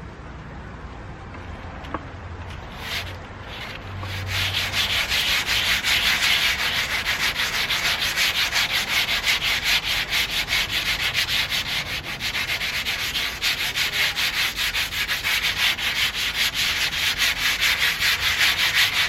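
Hand sanding the painted metal body of a 1991 Toyota MR2 with 80-grit sandpaper. A couple of single strokes come first, then from about four seconds in a long run of rapid back-and-forth strokes.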